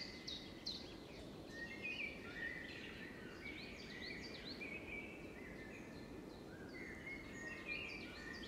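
Songbirds singing: quick chirps and short trilled phrases from more than one bird over a steady background of outdoor noise.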